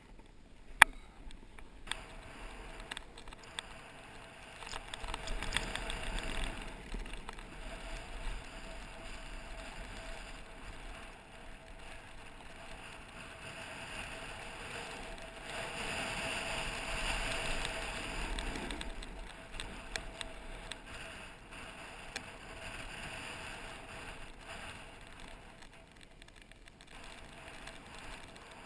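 Snowboard sliding over snow, with wind rushing over a camera worn by the rider; the rushing swells twice as the rider picks up speed. There is one sharp knock under a second in.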